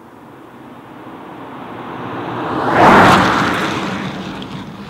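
Holden Commodore VXR's 3.6-litre V6 sedan approaching and passing at speed, with engine and tyre noise building to a peak about three seconds in. The sound then fades as the car brakes hard going away.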